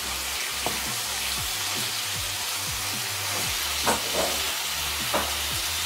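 Chicken and vegetables in a soy sauce mixture sizzling in a frying pan while being stirred with a wooden spatula: a steady sizzle that cuts off abruptly at the end.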